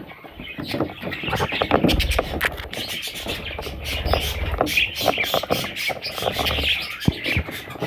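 Budgerigar chicks chirping, mixed with many short scratchy clicks.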